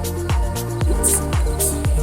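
Background electronic dance music: a kick drum about twice a second over a held bass line, with a synth melody and hi-hat hiss above.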